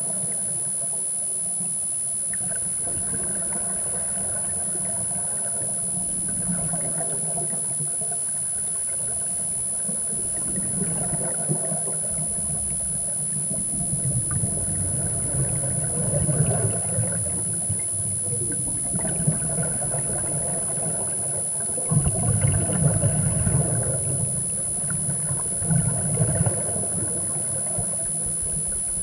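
Muffled underwater ambience recorded through a camera housing, with a steady high-pitched whine and, every few seconds, louder low rumbling gurgles of scuba exhaust bubbles from a diver's regulator.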